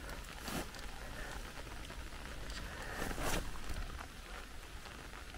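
Rustling and swishing in wet grass, with two louder swishes about half a second in and just after three seconds, over a steady soft hiss.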